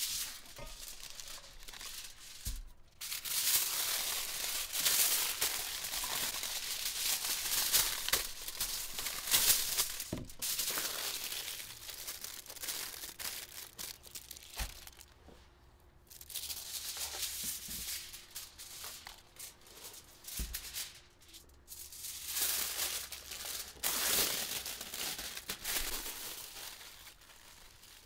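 Aluminium foil being pulled off the roll, torn and crinkled as it is folded and pressed into wrapping, in stretches of rustling with a few short pauses.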